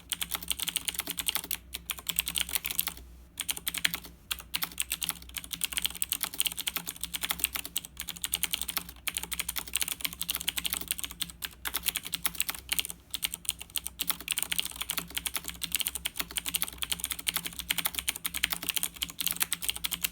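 Fast, continuous typing on a Razer BlackWidow 2013 mechanical keyboard, a rapid stream of key clicks and clacks with a couple of short pauses in the first few seconds. The typing stops at the very end.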